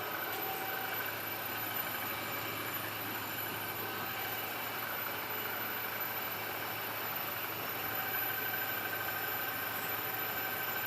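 Metal lathe running steadily, a continuous machine hum with faint high whining tones.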